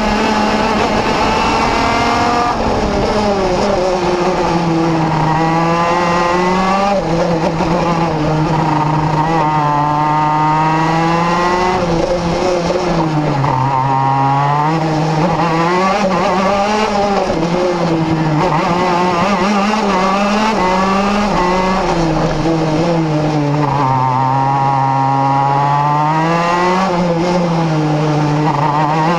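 Vortex RVXX 125 cc two-stroke engine of a Tonykart KZ2 shifter kart at racing speed, heard onboard, its revs climbing and dropping over and over through the corners of a lap.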